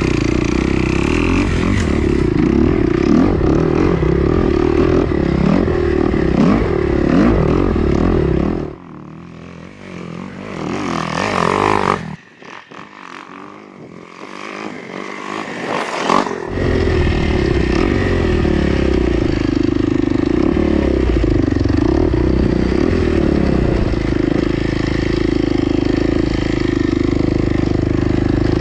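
Dirt bike engine running while riding. The sound drops away for several seconds about a third of the way through, with a rising sound in the gap, then returns.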